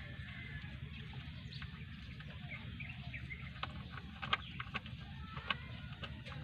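Scattered light metallic clicks of a hand wrench turning the bolts that hold an automatic transmission's filter, with a cluster of sharper clicks a little past the middle, over a steady low hum.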